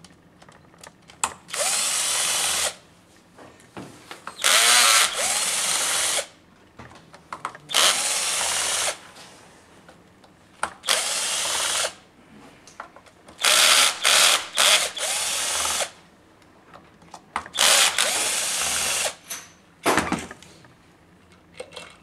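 Cordless power screwdriver running in short bursts of one to two seconds, about six times, as it backs out the screws holding the top gear-housing cover of a Bosch GBH 5-40DCE rotary hammer. Small clicks fall between the bursts, and there is a sharp knock near the end.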